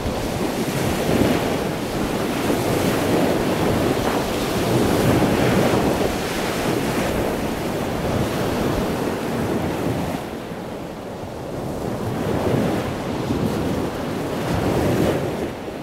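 Ocean surf breaking and washing on a sandy beach, mixed with wind buffeting the microphone: a steady rushing that eases for a moment about two-thirds of the way through.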